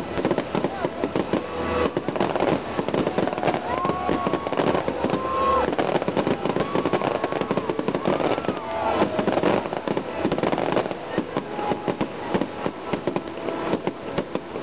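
A fireworks display going off: a dense, continuous run of crackling and popping bursts, one on top of another.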